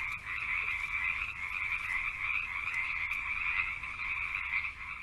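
A dense chorus of frogs calling, a steady, unbroken din of overlapping calls.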